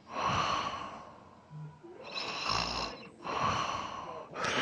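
A sleeping man snoring: a run of rasping, noisy breaths, each under a second long, with a short, sharp breath near the end.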